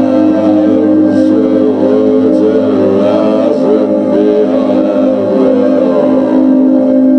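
Music: a steady held drone with a wavering, gliding melody line above it.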